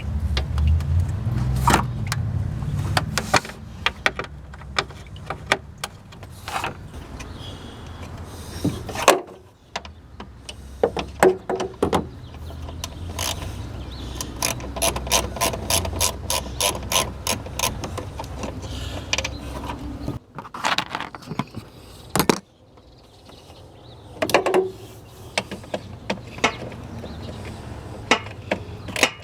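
Socket ratchet clicking in runs as fasteners on the radiator cooling fan are loosened, mixed with scattered knocks and clunks of tools and parts. A low steady hum sits underneath and stops about two-thirds of the way through.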